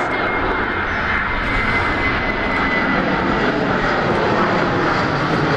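Boeing 737-800's twin CFM56 turbofan engines at takeoff power as it climbs out overhead: loud, steady jet engine noise with a high whine that fades about two and a half seconds in.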